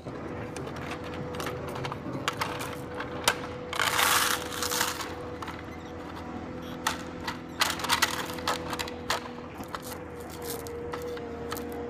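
Small pebbles clicking and clattering against each other and against the plastic blade of a toy Caterpillar bulldozer as they are picked up and dropped in by hand, with a denser rattle lasting about a second some four seconds in.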